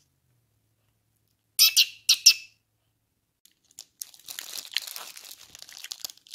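Plastic honey bun wrapper crinkling: two sharp crackles about a second and a half in, then steady crinkling and tearing from about four seconds on as the wrapper is opened.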